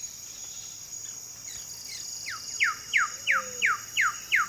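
Wilson's bird of paradise calling: a run of about seven quick, down-slurred whistled notes, roughly three a second, starting about halfway through, over a steady high drone of insects.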